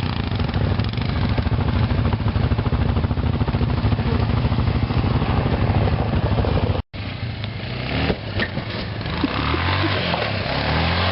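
ATV engine running steadily under way. After an abrupt cut about two-thirds through, another ATV engine is heard at lower, changing revs.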